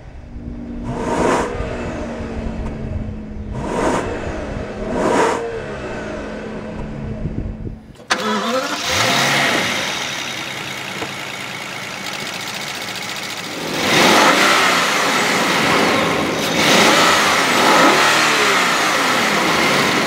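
A 2014 Rolls-Royce Wraith's twin-turbo V12 idles and is blipped three quick times, heard deep and rumbling at the tailpipes. It is then heard from the engine bay, brighter and less bassy, and revved several more times, with longer revs near the end.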